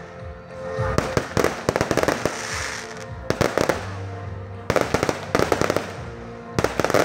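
Aerial fireworks shells bursting and crackling in four volleys: about a second in, just after three seconds, around five seconds and again at the end. Music plays underneath between the volleys.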